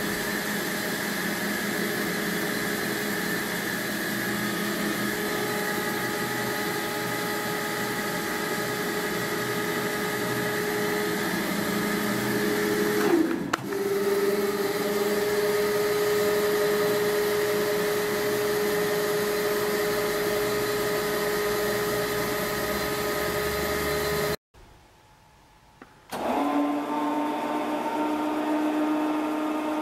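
Electric drive motors and gearing of a BODE 60 VP welding turntable running, a steady motor whine with several tones as the table tilts and turns. Around the middle the pitch steps up after a brief jolt, and near the end it cuts out for about two seconds, then runs again at a lower pitch.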